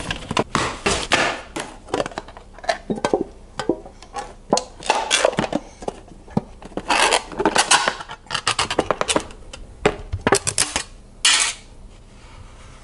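Plastic containers handled: a shaker bottle and a powdered sports-drink canister being taken out, opened and set down, giving a quick run of knocks, clicks and scrapes, busiest about seven seconds in and again around eleven seconds.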